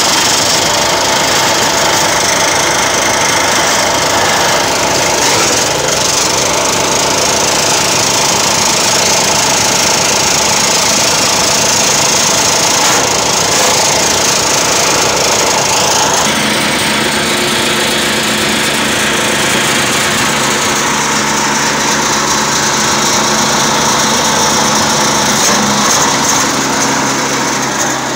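A homemade belt-driven branch chipper, powered by a small engine, running under load and chewing branches into wood chips: a loud, steady mix of engine noise and the hiss and crackle of chipping. About halfway through the chipping noise eases and the engine's steady hum comes forward.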